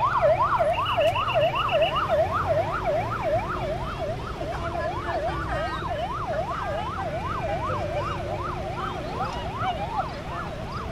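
Emergency vehicle siren on a fast yelp, its pitch sweeping up and down about three times a second, over a steady low engine rumble.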